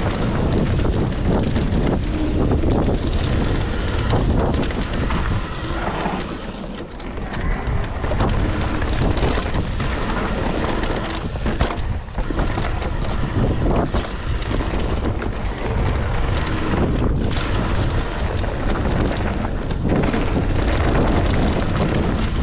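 Wind buffeting the camera microphone over the rumble and clatter of a Specialized Turbo Levo electric mountain bike riding down a dry dirt trail, with frequent knocks as it runs over bumps.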